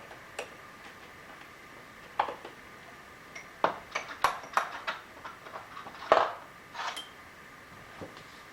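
Small steel tools clinking and tapping against each other and a metal case, a string of irregular clicks with brief high rings. These are steel transfer punches being sorted through in search of a smaller size.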